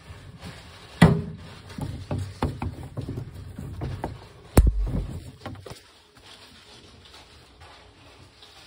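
Handling noise from gloved hands working at gas pipework: rustling and scattered clicks, with two sharp knocks about a second in and about four and a half seconds in, then quieter from about six seconds.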